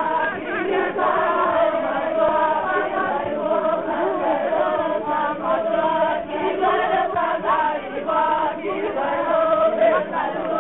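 A group of voices singing or chanting together, many voices overlapping in a continuous, unaccompanied chorus.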